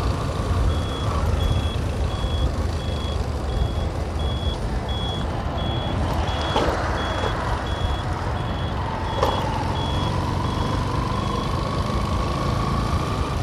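Motorcycle turn-signal buzzer beeping about twice a second over engine and wind rumble while the bike makes a turn; the beeping stops shortly before the end. From about nine seconds in, a steady whine slowly rises in pitch as the bike gets going again.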